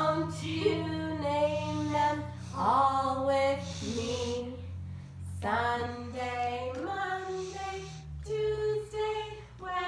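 A woman singing a children's song unaccompanied, in held notes with short breaks between phrases, over a faint steady low hum.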